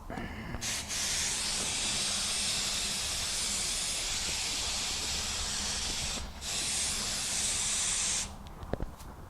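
Finex FX100 spray gun spraying paint with compressed air, a steady hiss in two long trigger pulls with a brief break about six seconds in, stopping a second before the end.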